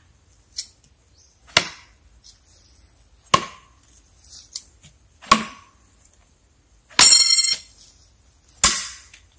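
Steel throwing knives thrown one after another and striking their targets: five sharp hits spaced a second and a half to two seconds apart. The fourth hit rings out metallically for about half a second.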